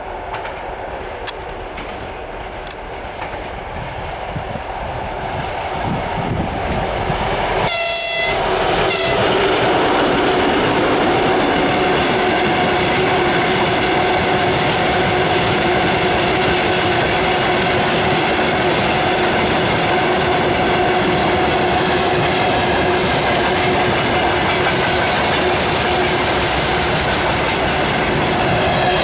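A 2M62U twin-section diesel locomotive pulling a freight train draws near, growing louder over the first ten seconds. About eight seconds in it gives one short horn blast of about a second and a half. After that, freight wagons roll past in a steady rumble and clatter of wheels on the rails, with a steady tone running through it.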